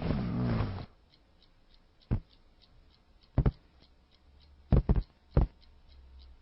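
A short rough noise, then a handful of sharp knocks, some single and some in quick pairs.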